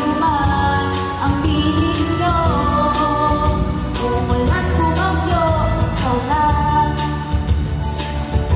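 A woman sings a Tagalog love song into a microphone over instrumental backing music.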